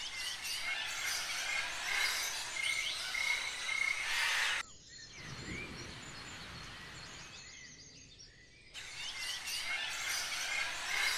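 Birds chirping and calling over a soft outdoor hush, with short whistled notes repeated again and again. A little under halfway through the calls drop back and a low rush swells and fades, then the birdsong comes back.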